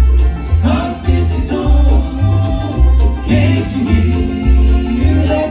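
Bluegrass band playing live, the upright bass laying down a steady beat of deep low notes under the other instruments.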